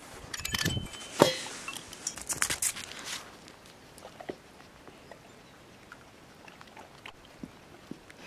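Spoon scraping and knocking against a cup as a topping is spooned into a stainless steel dog bowl, with one sharp knock about a second in. After about three seconds it gives way to faint, sparse wet clicks of a Weimaraner licking and chewing raw food from the metal bowl.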